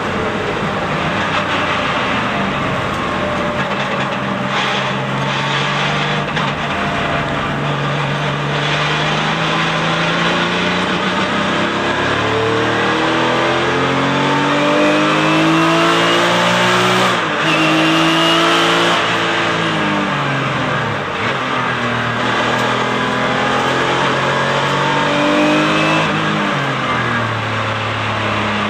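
Porsche 911 (996) GT3 Cup race car's flat-six engine at racing speed, heard from inside the cockpit. Its note climbs through the gears with quick upshifts, falls away about twenty seconds in, then climbs again.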